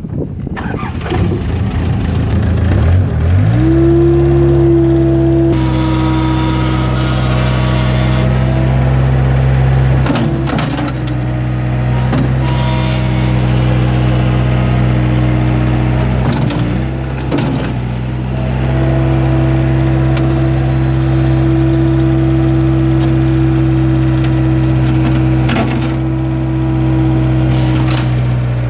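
Mustang 940 skid steer loader's engine catching and starting right up, its note rising over the first few seconds and then running steadily at a raised speed. The note dips briefly a few times.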